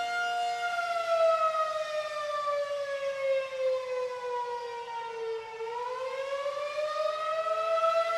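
Federal Signal 2001-SRN rotating electromechanical tornado siren sounding its Full Attack wail. The tone holds steady, slides slowly down in pitch for about five seconds, then climbs back up over the last two seconds, its loudness wavering as it turns.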